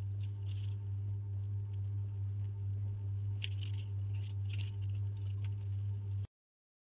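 Steady low electrical hum with a thin high whine above it, and a few faint soft handling sounds from hands pressing soft peda dough. The sound cuts off abruptly about six seconds in.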